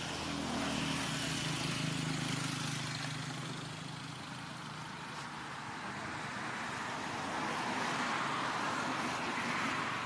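Passing road traffic: a low engine hum that fades about three seconds in, over a steady wash of traffic noise.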